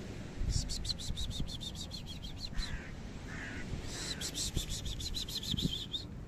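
A bird's rapid chattering call in two runs of about nine sharp notes a second, each run lasting about two seconds with a short pause between.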